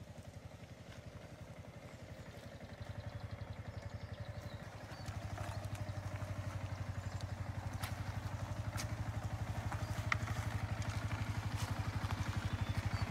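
Yamaha R15's single-cylinder engine running at low speed with a steady, even pulse as the motorcycle picks its way down a rocky dirt track, getting louder as it comes closer, with a step up about five seconds in. A few sharp clicks sound in the second half.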